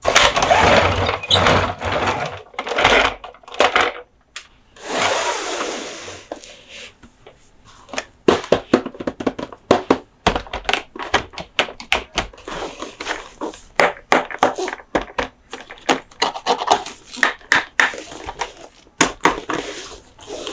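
Close-up hand sounds on diecast toy monster trucks and their packaging. Several seconds of scraping and rubbing come first, then many quick, irregular taps and clicks.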